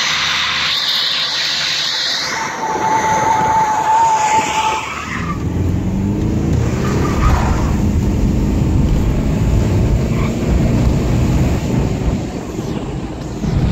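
Tyres squealing and hissing under wheelspin on a Jeep Liberty 2.8 CRD during a skid, with one steady squeal note held for a couple of seconds. About five seconds in, the squeal gives way to the four-cylinder turbo diesel revving hard and rising and falling, heard from inside the cab.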